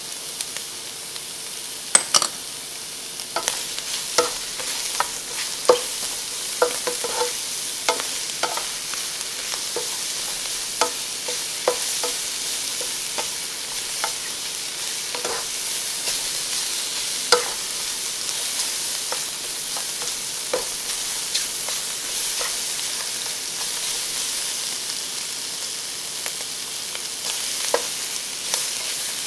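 Stir-frying in a nonstick wok: a steady sizzle of shrimp, Chinese sausage and vegetables frying, with irregular clicks and scrapes of a spatula against the pan. The clicks come thickest over the first dozen seconds and again near the end.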